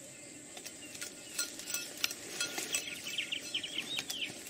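A small bird chirping in a quick run of short high notes in the second half, over scattered light clicks and rustles and a thin steady high tone.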